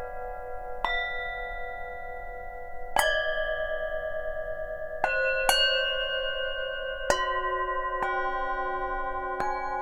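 Tibetan singing bowls struck one after another, about seven strikes, each leaving long ringing tones that overlap. The strikes bring in different sets of pitches.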